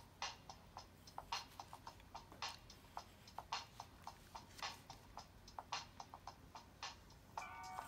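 Faint rhythmic ticking: a sharper click about once a second with lighter ticks in between, keeping an even beat. A short pitched note sounds near the end.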